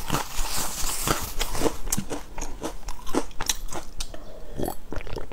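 Close-miked chewing of a crunchy baked biscuit: a run of crisp crunches and mouth clicks, thinning out in the second half, then a sip of water from a glass near the end.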